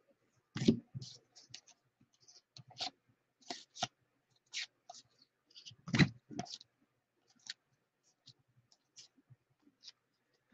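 A stack of 2018 Bowman baseball cards being thumbed through one at a time, each card sliding off the stack with a small click or snap at an uneven pace. Two louder snaps come about a second in and around six seconds in.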